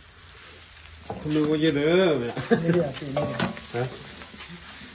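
Meat sizzling as it is stir-fried in a large steel wok, a metal spatula scraping and clicking against the pan. A voice rises and falls briefly about a second in, louder than the frying.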